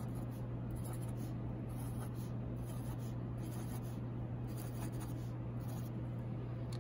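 Black Sharpie marker drawing on paper: a string of short scratchy strokes and dabs with pauses between, as lines and dots are added. A steady low hum runs underneath.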